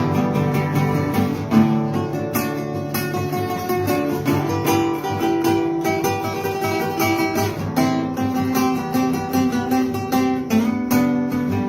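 Acoustic guitar (violão) strumming chords steadily in an instrumental passage of a gospel song, with no singing.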